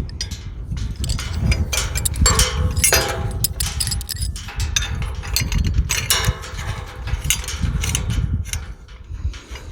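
Metal clicks, knocks and scrapes as slide bolt latch parts are handled and fitted against a tubular metal farm gate, with a few brief ringing tones about two to three seconds in, over a steady low rumble.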